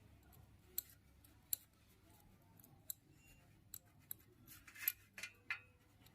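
Sharp metallic clicks and clinks from a bike's drive chain and sprockets, coming at uneven intervals and more often after about four seconds, some with a short ring: the chain noise being worked on.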